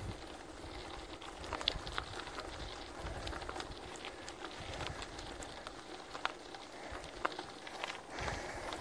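Crunching on gravel with scattered sharp clicks and ticks, from a bicycle and its rider moving over a gravel track.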